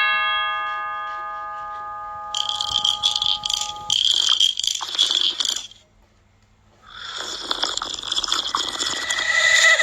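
A bell-like chime rings out and fades over the first few seconds, then two stretches of harsh, high rattling hiss follow, with a short silent break between them.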